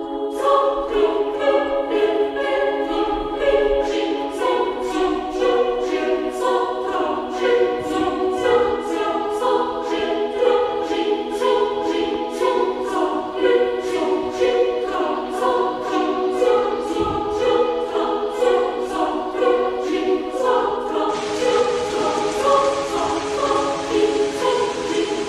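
Background music: a choir singing sustained chords over a steady rhythmic pulse. A steady high hiss joins about four fifths of the way through.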